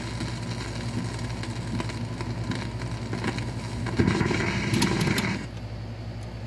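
Console record changer after a 78 rpm record ends: the stylus runs on with surface noise, light clicks and a steady low hum. About four seconds in, the changer mechanism cycles with a clatter lasting about a second and a half, and then it quietens.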